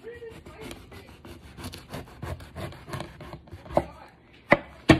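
Kitchen knife sawing back and forth through the fibrous core of a jackfruit section: a rapid, irregular run of scraping strokes, then three sharper knocks near the end.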